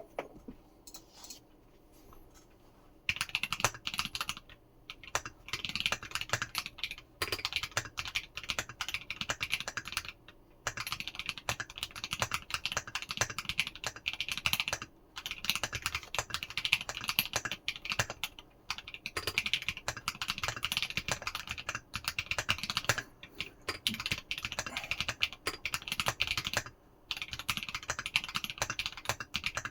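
Typing on a 60% mechanical keyboard, a 1upKeyboards Pi60 PCB in a Tofu60 Redux aluminium case with YMDK plate foam fitted under the plate. A few scattered keystrokes come first, then from about three seconds in steady fast runs of key clicks and clacks, broken by brief pauses every few seconds.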